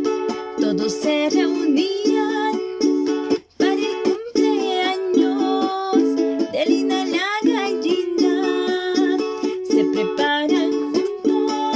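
Ukulele-accompanied children's song music with a bouncy strummed rhythm and a melody line over it.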